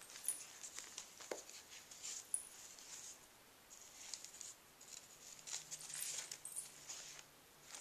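Soft, on-and-off rustling and crinkling of thin paper napkins being picked up, unfolded and laid down.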